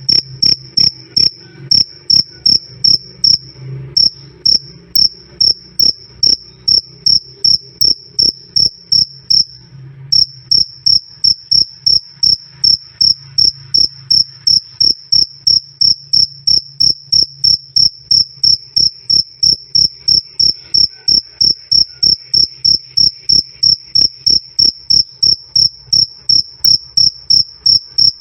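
Cricket calling: a loud, clear, high 'krik krik' chirp repeated steadily about three times a second. Twice the chirps run together into a short trill, then break off briefly before resuming.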